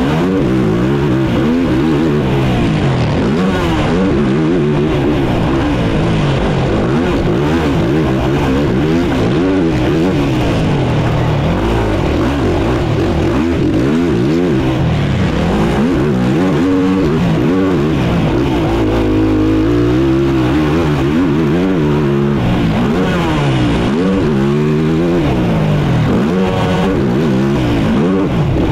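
Racing ATV's engine heard on board, revving up and down again and again as the quad accelerates, shifts and backs off around the motocross track.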